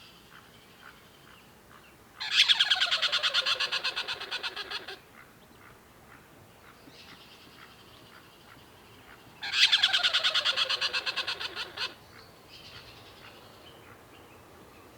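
A tree squirrel giving two long bouts of rapid, rattling chatter, each starting loud and fading over about three seconds. Softer chattering calls come between and after them.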